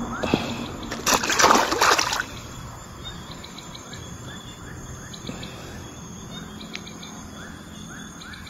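A short, loud splash of water in the shallows at the bank, about a second in and lasting about a second, where a topwater lure sits tangled in weed. Afterwards only a faint chirp, repeating about four times a second, over the outdoor background.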